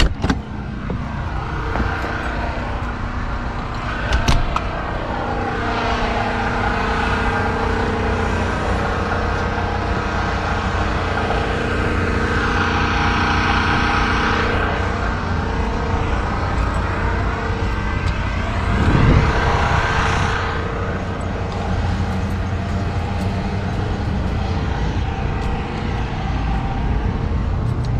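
The RV's 454 big-block V8 idling steadily, a low even running sound with a few steady tones that shift slightly, a little louder about two-thirds of the way through.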